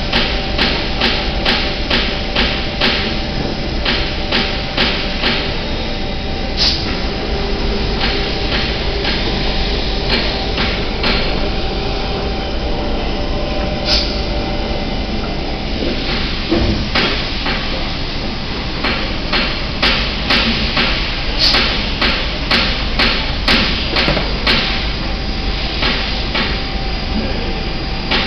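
A machine running with a steady hum and rapid, regular clicking or knocking, a few clicks a second; the clicking fades for a while in the middle and then returns.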